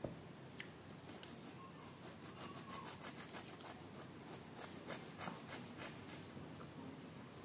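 Knife sawing back and forth through a crusty loaf of bread on a plastic cutting board: a run of quick, faint scraping strokes, thickest from about halfway in, after a light knock at the very start.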